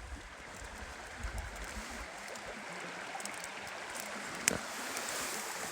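Steady rushing of a mountain river, with low rumbling on the microphone in the first two seconds and a single sharp click about four and a half seconds in.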